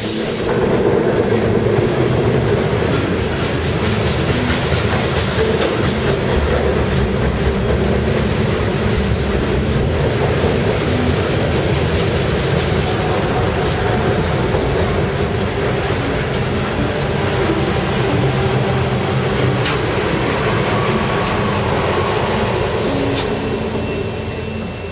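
White refrigerated boxcars of a CSX Tropicana juice train rolling past: a steady rumble of steel wheels on the rails that fades near the end as the last car goes by.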